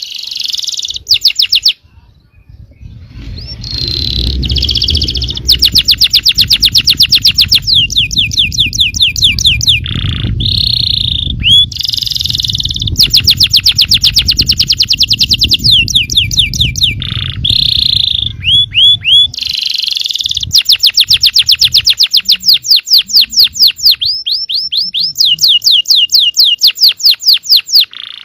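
Domestic canary singing a long song of fast rolling trills, runs of rapidly repeated notes broken by short held notes. A low rumble sits underneath for much of the first two-thirds.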